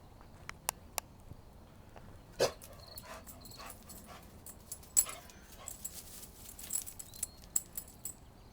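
A dog moving about close by: scattered clicks and taps, a short louder sound about two and a half seconds in, a sharp click a few seconds later, then a run of small rapid clicks.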